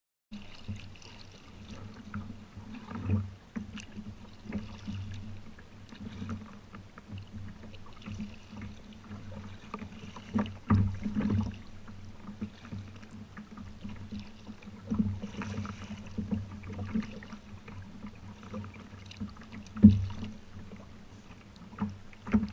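Kayak on the sea: water moving against the hull with a steady low hum, broken by scattered knocks and thumps, the loudest about twenty seconds in.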